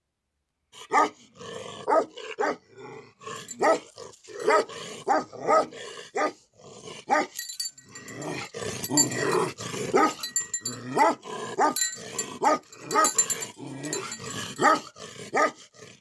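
Bhote Kukur, a Himalayan livestock guardian dog, barking over and over, starting about a second in, in loud barks with a resonant ring.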